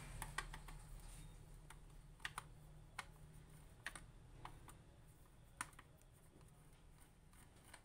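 Faint, irregular plastic clicks and taps, a dozen or so, from the plastic housing and end cap of a Xerox 57xx/58xx/56xx drum unit as it is handled and the end cap is worked off.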